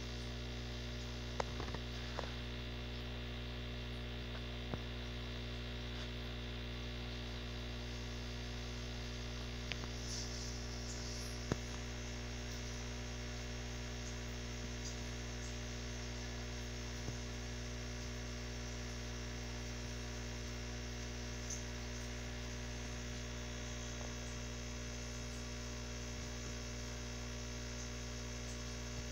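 Steady electric hum of aquarium equipment such as an air pump, with many even overtones, broken by a few faint clicks.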